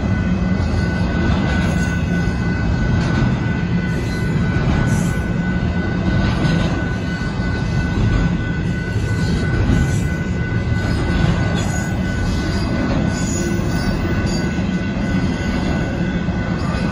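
Long Union Pacific intermodal freight train of container cars rolling through a grade crossing: a steady, loud rumble and clatter of wheels on the rails, with a thin steady high-pitched squeal running over it.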